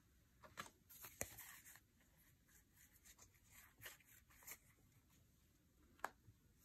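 Faint handling noise, soft rustling with a few light clicks, the sharpest about a second in and about six seconds in.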